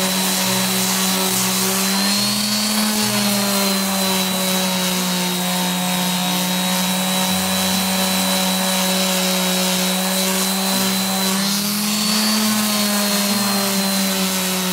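Electric random orbital sander running on a wooden tabletop: a steady motor hum over the hiss of the abrasive on the wood. Its pitch lifts briefly twice, about two seconds in and again near the end.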